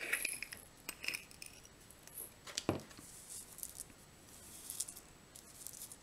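Faint clinks and taps of small shaker beads and their little jar being handled, with one sharper knock about two and a half seconds in.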